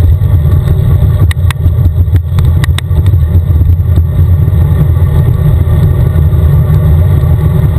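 Loud, steady low rumble of wind and road noise while riding a bicycle along a highway, with a few sharp clicks in the first three seconds.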